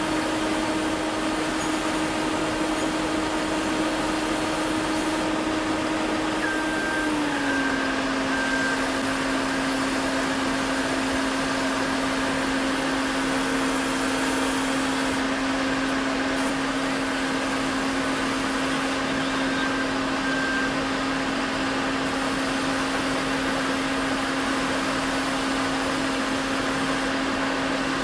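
A machine running steadily: a constant hum over a noisy rush, its pitch dropping slightly about seven seconds in.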